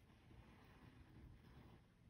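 Near silence, with a faint rustle of cotton embroidery floss being drawn through Aida cloth while cross-stitching.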